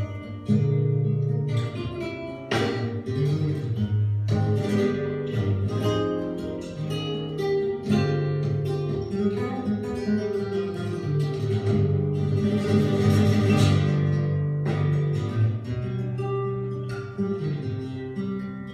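Live acoustic guitar playing tango, a picked melody broken by strummed chords, with a dense strummed passage about two-thirds of the way through.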